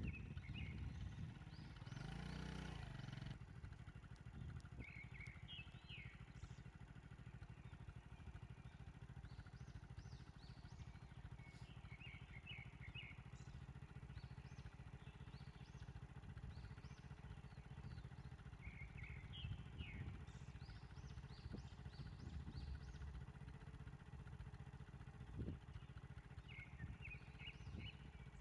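Quiet outdoor ambience: a steady low rumble with short bursts of small birds chirping every few seconds, and a brief louder noise about two seconds in.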